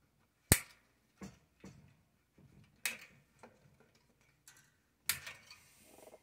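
Hand wire cutters snipping through galvanized chicken wire: three sharp snaps about two and a half seconds apart, with lighter clicks between them.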